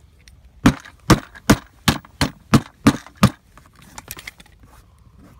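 Eight sharp knocks in an even rhythm, a little under three a second, followed by a few faint clicks.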